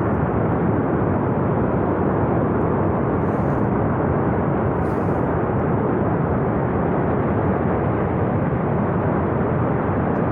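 Steady, unbroken rush of a glacier-burst flood torrent, a loud wall of churning water.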